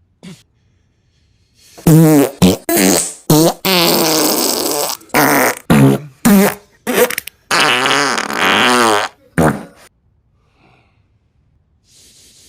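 Very loud, heavily distorted coughing edited into a rapid string of bursts, some pitch-bent and stretched into long drawn-out blasts. It starts about two seconds in and stops a couple of seconds before the end.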